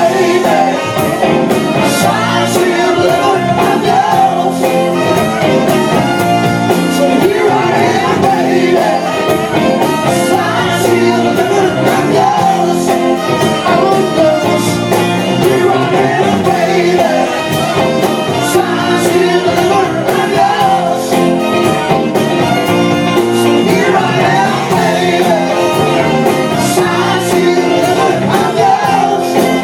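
A live Motown cover band playing a soul song, with singing over the band.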